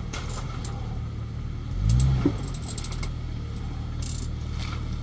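Jeep engine running low under off-road crawling, with a brief rev that rises and falls about two seconds in and a single sharp knock just after. Light clicking and rattling run throughout.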